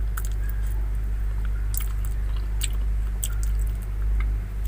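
Close-up mouth sounds of a man biting and chewing soft durian flesh: scattered wet smacks and clicks of the lips. These sit over a steady low rumble.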